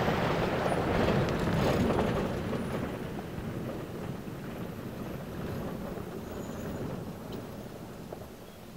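Four-wheel-drive SUV driving away on a gravel road, its engine and tyres on loose gravel fading steadily as it pulls into the distance.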